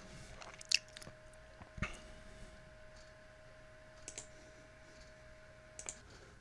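Faint computer mouse clicks and small desk-handling noises, with a few sharp clicks scattered through, over quiet room tone and a faint steady tone that stops near the end.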